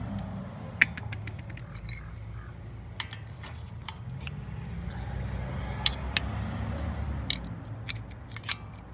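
Metal socket and tool parts clinking and scraping as they are handled and fitted together, with sharp clinks every second or two over a low steady rumble.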